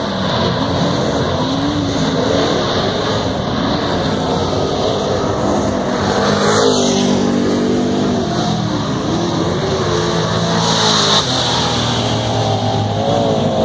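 Dirt-track Super Stock race cars' engines running hot laps, several cars at once, their pitch rising and falling as they accelerate down the straights and back off into the turns.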